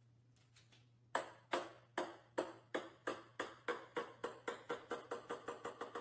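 A small ball bouncing on a hard floor: sharp pings start about a second in and come faster and fainter as the bounces die down.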